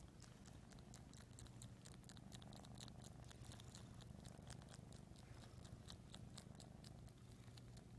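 Kitten purring faintly and steadily, with a rapid run of soft, wet clicks as it suckles and chews on a blanket.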